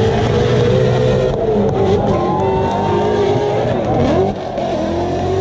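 Drift cars' engines revving hard and rising and falling in pitch through a tandem drift run. The revs dip briefly about four seconds in, then pick up again.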